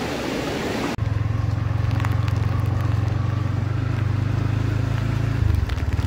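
For about a second, a flooded river rushes. Then a motorcycle engine runs steadily as the bike rides along a dirt track, its note dropping once near the end.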